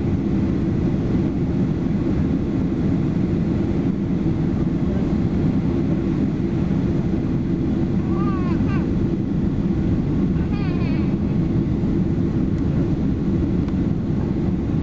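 Steady cabin roar inside a Boeing 767-322ER descending on approach with flaps extended: engine and airflow noise, deep and even, heard from a window seat over the wing.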